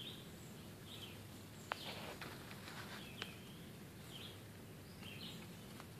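Quiet outdoor ambience: a star-nosed mole rustling through dry leaf litter and twigs, with a brief louder rustle about two seconds in and a couple of sharp clicks. Short distant bird chirps come every second or so.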